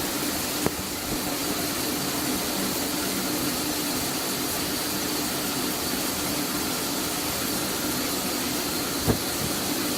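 Steady machine noise: a constant hiss with a low hum and a faint high whine running under it, with a couple of small clicks.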